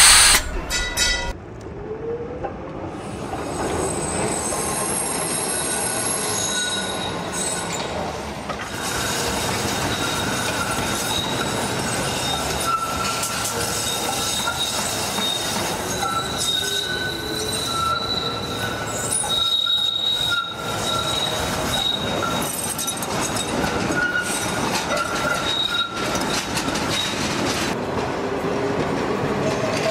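Tram running on rails, its steel wheels squealing in thin high drawn-out tones over the steady rumble of the running gear. A brief loud burst comes right at the start.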